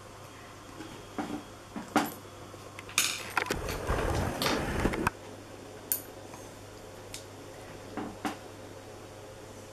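Handling noise: a few light knocks and clicks, and about three and a half seconds in a second or so of rubbing and low rumble as the camera is moved. A steady low hum runs underneath.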